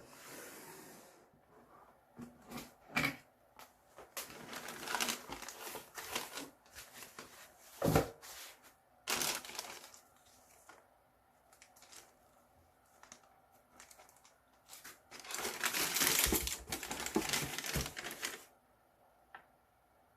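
Hands unboxing a pair of football boots: clicks and knocks of the cardboard shoe box with bursts of crinkling paper. Two sharp knocks stand out, about three and eight seconds in, and the longest, loudest rustle comes a few seconds before the end.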